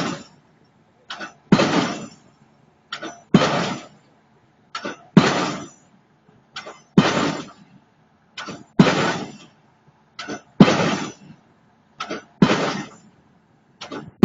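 Hydraulic impact hammer driving a pile, striking in a steady rhythm about once every 1.8 seconds. Each heavy blow is preceded by a pair of short clicks and dies away over about half a second.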